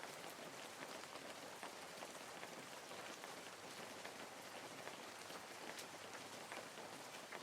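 Faint, steady patter of rain, with scattered light ticks of drops.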